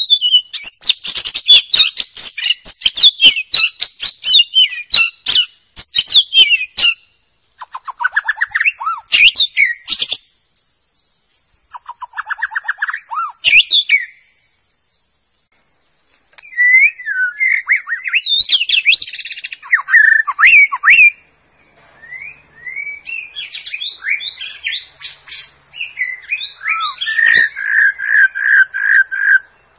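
White-rumped shama singing in loud, varied phrases of rich whistles, gliding notes and rapid clicking trills, broken by short pauses; near the end comes a fast run of evenly repeated notes. A faint steady high tone sits under the song for the first ten seconds or so.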